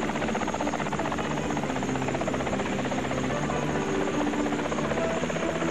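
Sikorsky VS-300 single-rotor helicopter hovering, its rotor beating in a fast, even chop over the steady running of its engine.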